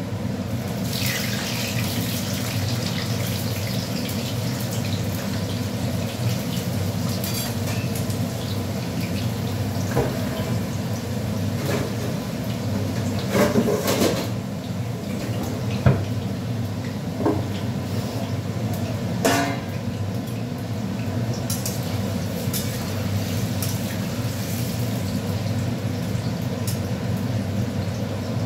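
Potato pieces frying in hot oil in a pan, a steady sizzle over a low hum, with a few sharp clinks and scrapes of a spatula against the pan.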